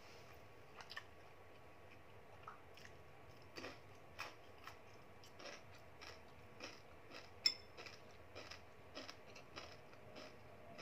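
Wooden chopsticks clicking and tapping against plastic food containers and dishes as food is mixed and picked up, with soft chewing between; one sharper click comes a little past halfway.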